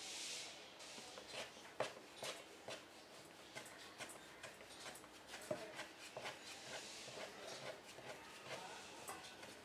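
Roti dough being worked by hand: soft, irregular taps and clicks with light rubbing, and a brief hiss at the start.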